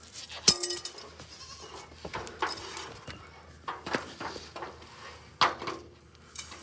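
Goats bleating amid knocks and clatter of feed bowls being handled. The loudest is a sharp knock about half a second in.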